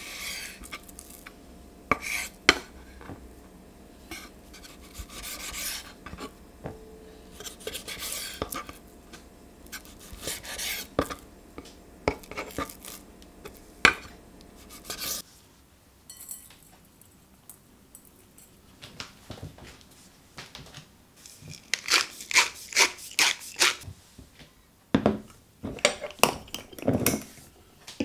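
A knife slicing raw beef steak into thin strips on a wooden chopping board: repeated drawn cuts, with the blade knocking the board now and then. Later, after a lull, a fast run of clicks and then several louder taps and clinks at a glass mixing bowl.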